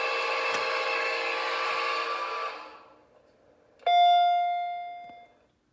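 A steady many-toned electronic sound from an elevator button panel fades out, and a few seconds in the panel's arrival chime strikes once and rings away, its single beat marking floor 1.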